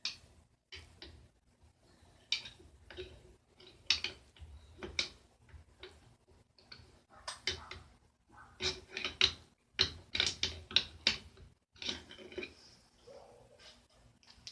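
Hand tools working on a motorcycle engine's metal parts: irregular clicks and knocks, with runs of quick clicks that are loudest past the middle.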